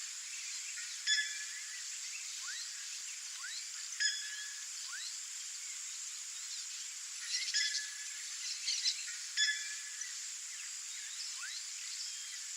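Short bird calls, each a brief note, come about a second in, again at four seconds, and in a quick cluster from about seven to ten seconds. Faint thin rising whistles sit between them, over a steady high hiss.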